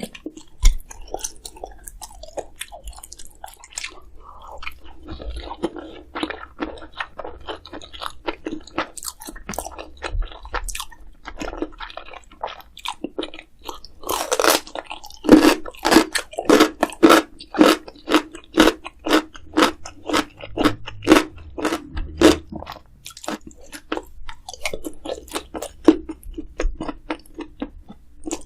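Close-miked eating: crisp food being bitten and chewed, a quick run of crunches that grows denser and louder about halfway through.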